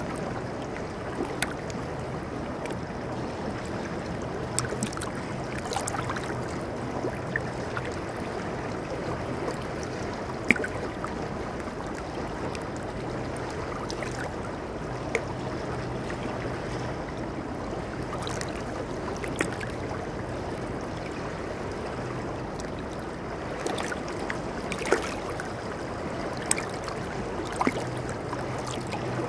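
Shallow river water running over and around rocks in a steady rush, with brief sharp ticks here and there.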